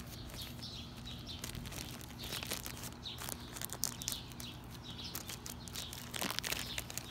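Thin plastic parts bag crinkling and rustling as it is handled, in irregular crackles.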